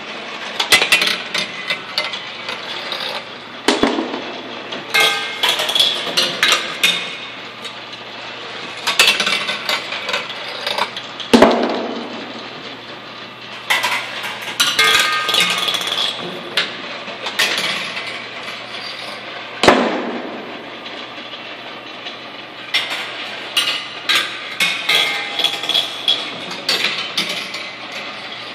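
Gumballs rolling, clattering and clinking through the aluminium channels, metal funnels and drum of a motor-driven kinetic sculpture, in repeated clusters of knocks and rattles over a steady low hum. Two sharper, louder knocks come about a third and about two-thirds of the way through.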